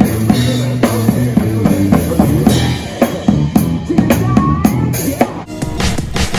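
Background music: a song with a drum-kit beat over a bassline that steps between held notes.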